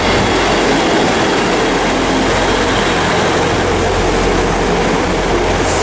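Great Western Railway Class 158 diesel multiple unit running into the platform and past close by: a steady drone from its underfloor diesel engines mixed with wheel and rail noise.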